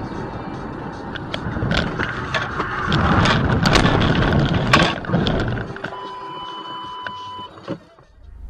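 A car driving off the road into dense brush: a loud rush of scraping and many sharp knocks as branches and tall grass strike the body and windscreen, loudest in the middle. Near the end a steady electronic beep tone sounds for about a second and a half.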